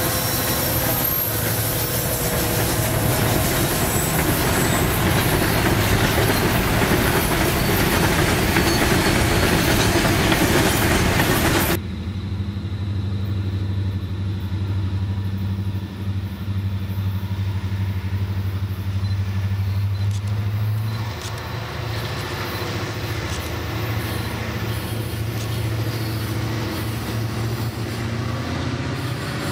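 Freight train with several diesel-electric locomotives passing close by, a loud dense rumble of engines and wheels on the rails. About twelve seconds in it cuts to a diesel locomotive's engine heard approaching from a distance as a steady low drone.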